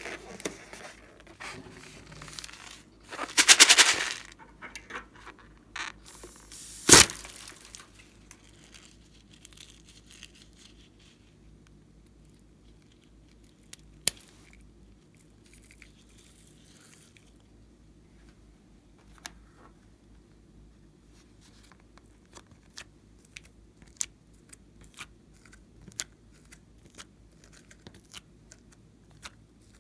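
Handling noises from slime-making materials: a loud crackling, tearing burst about three seconds in and a sharp snap about seven seconds in, followed by scattered small clicks and pops.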